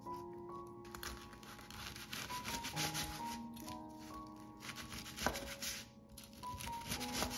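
Thick, crispy fried chicken coating crunching and crackling as a knife saws through the cutlet, with a sharp knock about five seconds in.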